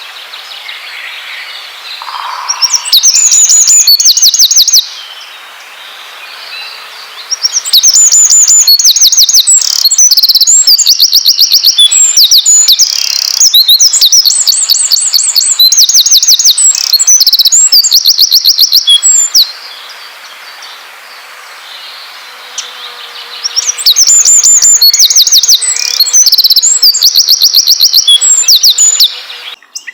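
Songbirds singing in long runs of fast, evenly repeated high trilled notes, in three stretches with quieter twittering between them.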